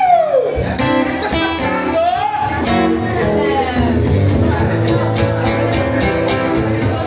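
Acoustic guitar played live, picked notes and chords in a steady accompaniment. A man's voice slides in pitch a few times without words, falling in the first half second and rising about two seconds in.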